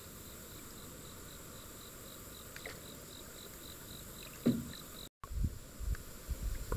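An insect chirping in an even, steady run of about three or four short high chirps a second over a constant high buzz. A single thump comes about four and a half seconds in, and low knocks and rumbles follow near the end.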